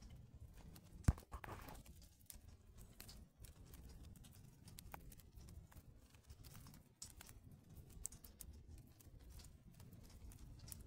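Faint handling noise from a phone held close in the hand: a low rumble with scattered clicks and rustles, and one sharp click about a second in.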